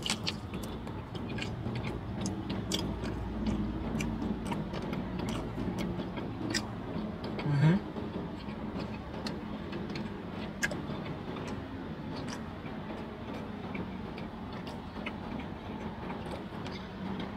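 A man chewing a sauced chicken wing: irregular wet clicks and mouth smacks, with a brief low hum from his throat about eight seconds in.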